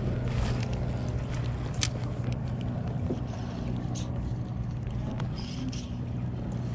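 Steady low motor hum with a few light clicks.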